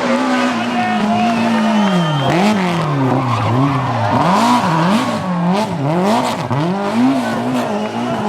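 BMW M3 E30 rally car's four-cylinder engine under hard driving: the revs hold for a moment, then rise and fall quickly again and again as the throttle is worked and gears are changed. A few sharp cracks come in the middle.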